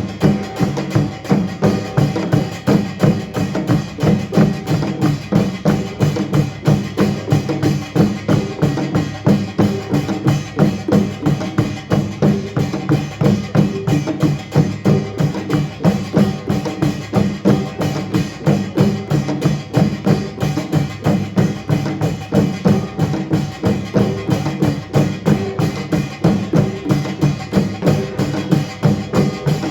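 Korean pungmul percussion band playing a steady, driving rhythm, mostly drums, with a few evenly spaced strokes every second.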